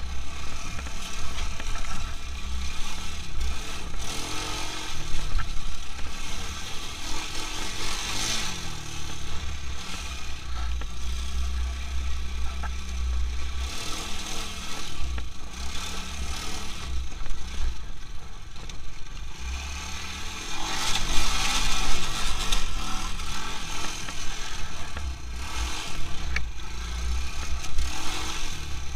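Quad bike (ATV) engine running under way, the revs rising and falling with the throttle, loudest around eight seconds in and again around twenty-one seconds in.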